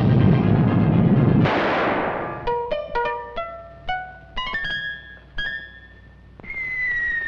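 Cartoon score and sound effects: a loud, dense rumble that breaks off with a crash about a second and a half in, then a run of short plucked notes, then a long falling tone near the end.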